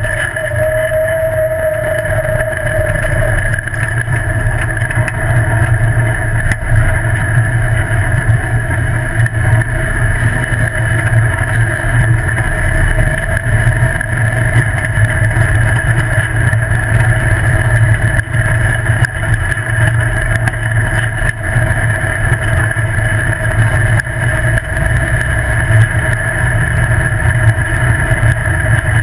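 Off-road buggy's engine running steadily as it drives at speed on a dirt road, with tyre and road noise mixed in.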